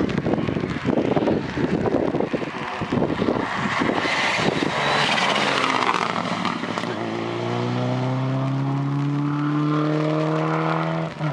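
Rally car engines at full throttle. In the first half a car passes close at speed with a dense, choppy roar. After that another car's engine note rises steadily as it accelerates, then drops briefly near the end at a gear change.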